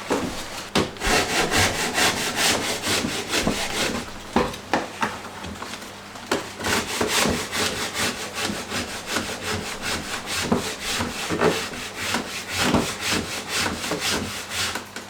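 Hand saw cutting through timber with quick, even back-and-forth strokes, about four a second, with a brief pause about midway.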